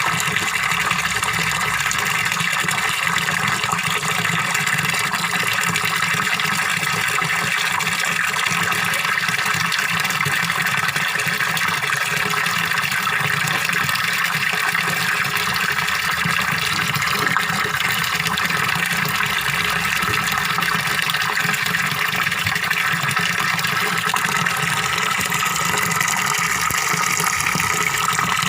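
Water from a small waterfall splashing and gurgling steadily, an even rushing with no breaks.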